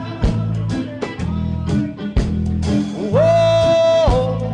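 A song: singing over a steady beat, with one long held note about three seconds in, lasting about a second.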